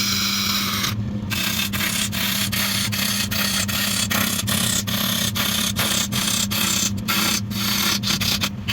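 Wood lathe running with a steady hum while a tool or abrasive rasps against the spinning wood. The hiss breaks off briefly about three times a second.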